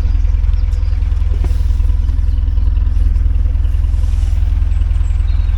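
Narrowboat diesel engine running steadily, a low, even, rapid thump with no change in speed.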